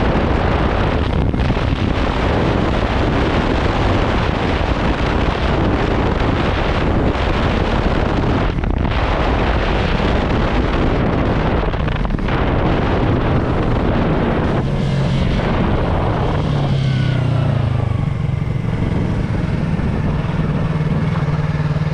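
Loud wind buffeting on the microphone from riding a Yamaha YZF-R3 at speed. About 15 seconds in the wind dies away as the bike slows, and the R3's parallel-twin engine comes through as a steady low note, settling toward idle near the end.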